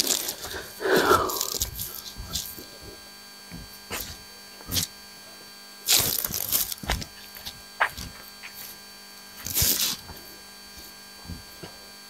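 Irregular rustles and crunches of footsteps on dry leaf litter, over a steady electrical hum.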